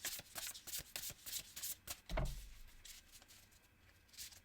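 Tarot cards being shuffled by hand, a quick run of soft papery clicks, then a dull thump about two seconds in, followed by quieter handling of the cards.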